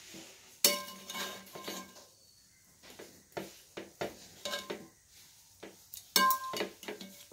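A metal ladle knocking and scraping against stainless-steel plates and a steel pot as rice is served out. There is a series of sharp clinks, each ringing briefly, with the loudest strikes near the start and about six seconds in.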